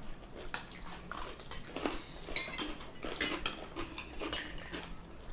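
Forks and spoons clinking and tapping against plates as people eat, in scattered irregular clicks.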